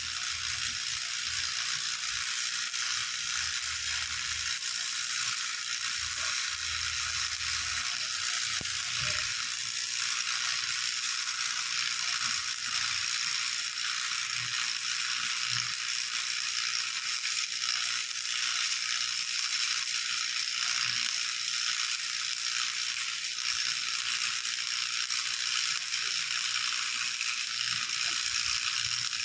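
Steady mechanical clatter with a hiss, like a small machine running.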